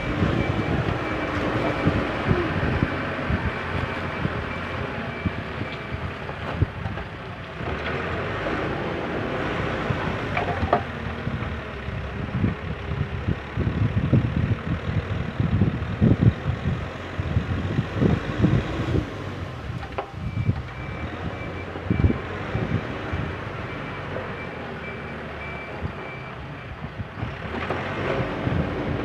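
JCB 3CX backhoe loader's diesel engine working, with its reversing alarm beeping evenly for the first six seconds and again for about six seconds after the twenty-second mark. In between come irregular clunks and knocks of the machine at work.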